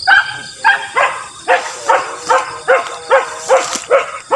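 Hunting beagle barking in a rapid, even series of loud barks, about two or three a second, typical of a hound in pursuit.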